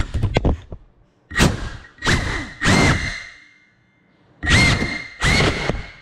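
FPV quadcopter crashing with a few quick knocks, then its motors spinning up in five short bursts that each rise quickly in pitch and cut off, while the drone lies tipped over.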